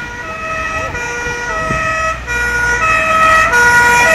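Fire engine's Swiss two-tone siren alternating between two notes, getting louder as the truck approaches.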